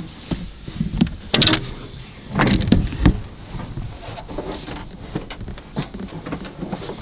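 Knocks, thumps and rustling of a person climbing out of the back of a pickup truck under a camper shell, with the loudest bangs about a second and a half in and again at around two and a half to three seconds.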